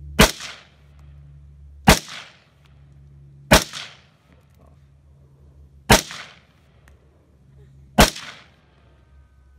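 Five gunshots fired one at a time, about two seconds apart, each a sharp crack followed by a short echo.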